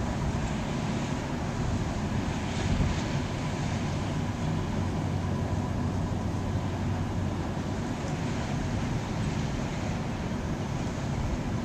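Steady low drone of the Great Lakes freighter Herbert C. Jackson's machinery carrying across the water as the ship passes, mixed with wind rumbling on the microphone.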